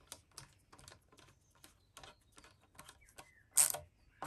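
Screwdriver turning a steel tang screw into a rifle's tang, making a string of light clicks at about three a second, with two louder noises near the end.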